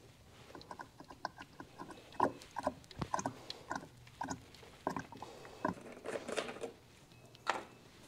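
Motor oil glugging out of a plastic bottle into a funnel: an irregular run of short gurgling glugs. A sharp knock near the end as a bottle is set down.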